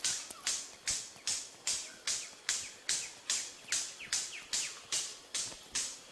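Rainforest wildlife sounds: a regular rasping pulse repeating about two and a half times a second, with faint descending whistled bird calls between the pulses.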